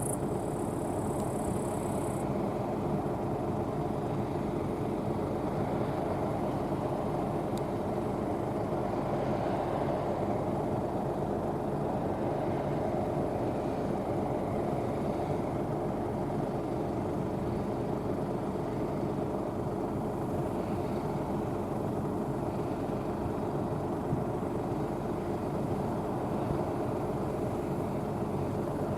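Rostselmash NIVA SK-5 M1 combine harvester running steadily while harvesting barley: an even engine and threshing-machinery drone.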